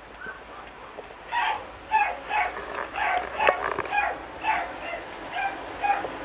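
Chihuahua puppy yipping: a quick run of about ten short, high-pitched yips, starting about a second in.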